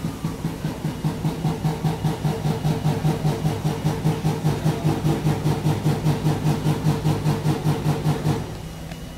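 A machine running with a steady, pitched throb that pulses about five times a second, stopping shortly before the end.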